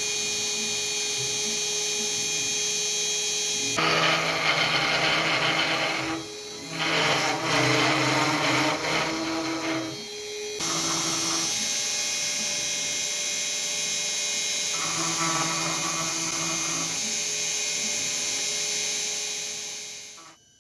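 Fox Alien Masuter Pro CNC router running, its spindle giving a steady high whine, with louder, rougher passages from about four to ten seconds in and again around fifteen to seventeen seconds as the machine works. The sound fades out near the end.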